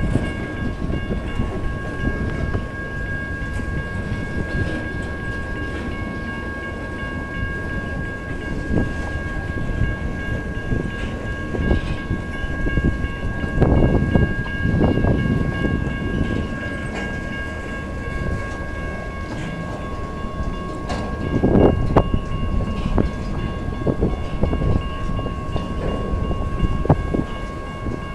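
Freight cars (loaded log cars and boxcars) rolling past with a steady rumble and wheel clatter, and a few louder knocks and swells partway through. A level-crossing warning bell rings steadily over it.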